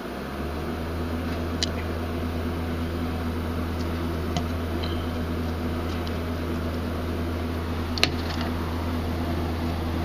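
A machine's steady low hum sets in right at the start and runs on, with a few light clicks over it, the sharpest about eight seconds in.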